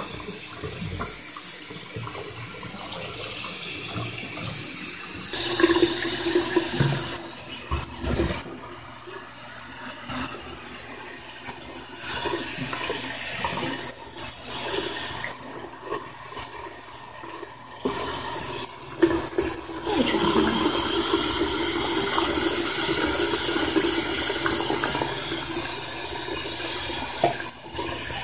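Bathroom sink tap running, its stream splashing over a wet cat and into the basin. The flow sound shifts abruptly between quieter and louder stretches and is loudest and steadiest for several seconds in the last third.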